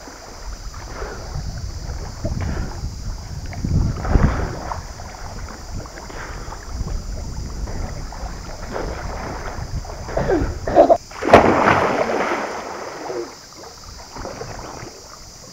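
Water splashing and sloshing, with wind rumbling on the microphone; a louder burst of splashing about eleven seconds in.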